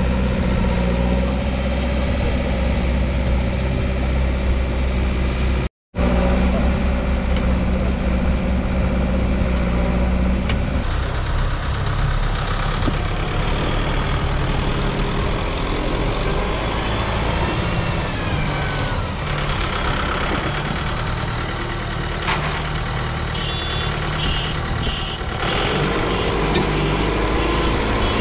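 Kubota MU5501 tractor's four-cylinder diesel engine running steadily while pulling a trolley heaped with soil. The sound cuts out for a moment about six seconds in. Near the end, a run of short high beeps repeats.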